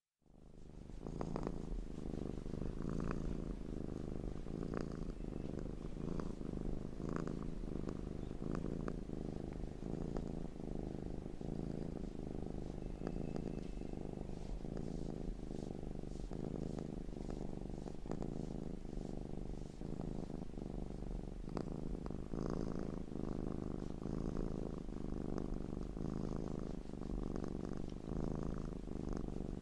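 Domestic cat purring steadily, fading in at the start.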